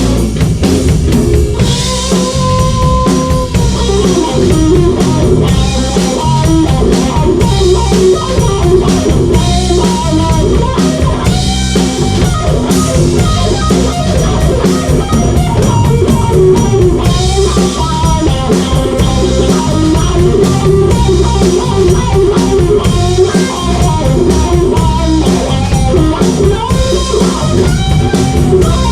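Blues band playing an instrumental passage, with a guitar playing a lead line with bent notes over drums.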